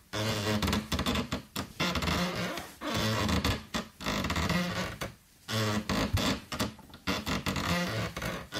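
Wood creaking: a run of about seven drawn-out, pitched creaks, each lasting about a second, with short pauses between them.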